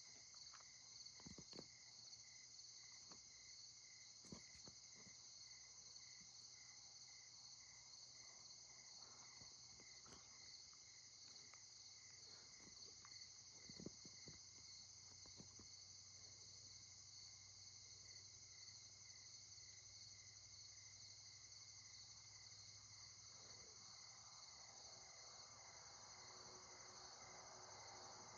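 Faint chorus of night insects chirping: a steady high trill with an evenly pulsing chirp beneath it, about three pulses a second. A few soft knocks sound over it, loudest about four and fourteen seconds in.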